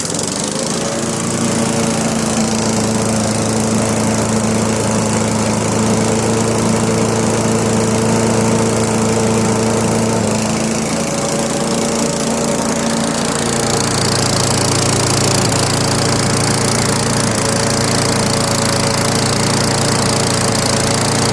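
3.5 hp Briggs & Stratton single-cylinder small engine running steadily with its newly installed and gapped ignition coil. Its pitch shifts slightly about ten seconds in and then holds steady.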